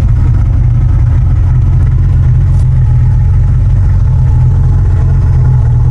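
1995 Mustang GT's 5.0 (302) V8 exhaust idling at the tailpipes, a steady, deep and grumbly sound.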